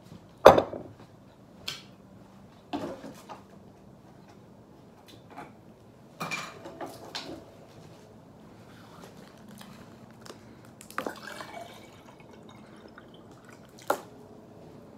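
Knocks and clatters of a plastic water bottle and kitchen things being handled, with water sounds; the loudest knock comes about half a second in.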